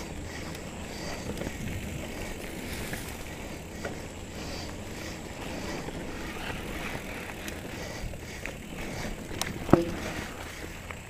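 Mountain bike (2017 Trek Remedy 7) rolling along a dirt trail: steady tyre noise on the dirt with small clicks and rattles from the bike, and one sharp knock near the end.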